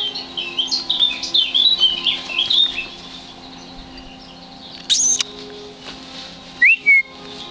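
Songbirds chirping and twittering in a quick run of short notes for the first three seconds, then two sharper, louder calls near the end.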